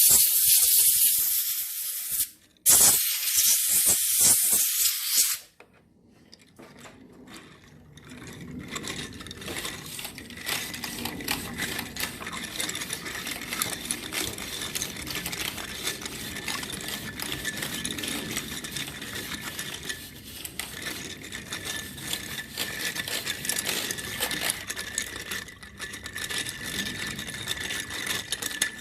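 A loud hiss for about five seconds, broken once briefly, then a long stretch of quick, dense clicking and rattling of small hard objects.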